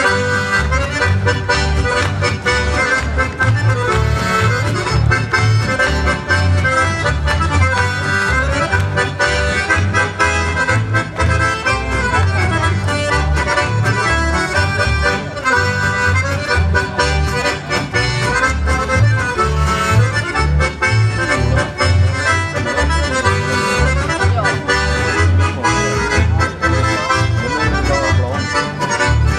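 Two accordions playing a tune together in ensemble, backed by guitar and a double bass whose notes give a steady, regular bass pulse.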